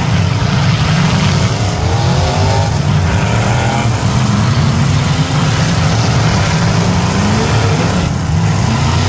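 Engines of several demolition derby stock cars running loudly together and revving, with rising revs about two seconds in as cars accelerate into the pack.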